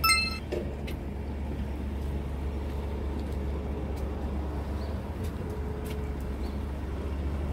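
Steady low rumble of road traffic at a street intersection, with cars passing. A few short electronic beeps sound right at the start.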